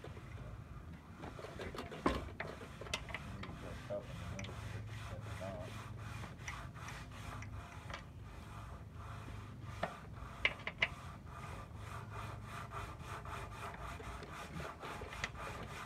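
Faint, quick, even run of scrapes and rubs with a few sharp clicks: the original steering lock of a 1952 Zündapp motorcycle being worked with a key while the handlebar is turned, the lock not engaging.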